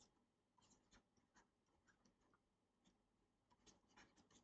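Near silence, with faint scattered ticks and scratches of a pen writing.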